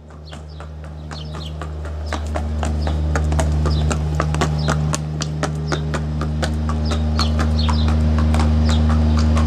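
Horse's hooves clip-clopping, many quick irregular knocks, over a steady low hum. The sound fades in over the first few seconds.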